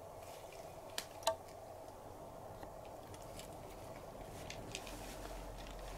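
A cat eating from a dish: small scattered clicks of licking and chewing, with two sharp taps about a second in, the second ringing briefly. A faint steady hum runs underneath.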